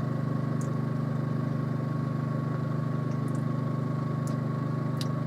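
Steady low hum with a faint, thin high whine above it, and a few faint, brief clicks.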